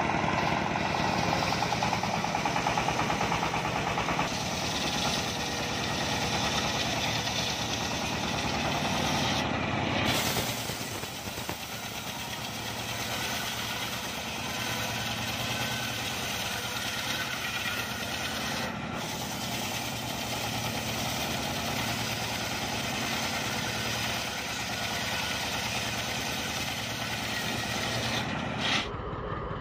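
Single-cylinder diesel engine driving a homemade circular sawmill blade that is ripping through mahogany logs. The engine runs at a steady chug under the noise of the blade cutting the wood, and the sound is louder during roughly the first third.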